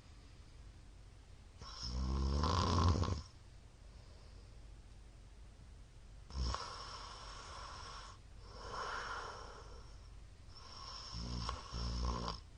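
A middle-aged man snoring loudly in his sleep: two loud snores about nine seconds apart, with softer breathing between them.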